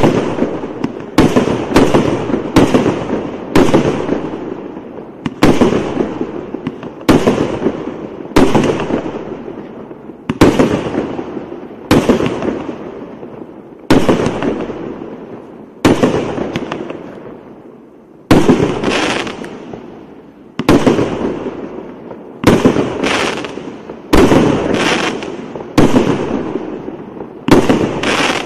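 A 215-shot fireworks cake firing: aerial shells bursting one after another, a sharp bang every second or so at uneven spacing, each trailing off in a fading rumble. There is a short pause near the middle.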